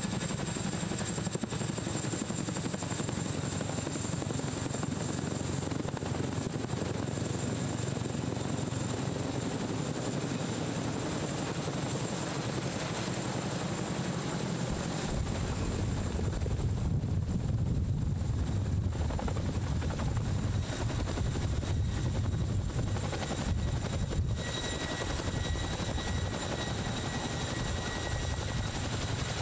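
Boeing CH-47 Chinook tandem-rotor helicopter flying low overhead and descending to land, its two rotors beating steadily. The low rotor beat grows heavier about halfway through, and a steady high whine joins it in the last few seconds.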